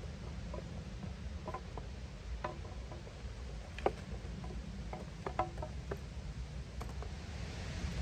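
Footsteps crackling on dry leaf litter and the light knocks of a wooden pack frame and wicker basket being set down, as scattered clicks over a steady low rumble. Near the end a canvas sheet is shaken out with a soft rushing flap.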